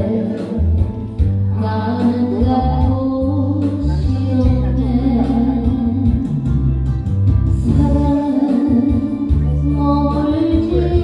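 A trot song playing: a sorrowful sung melody over a backing track with a steady bass line.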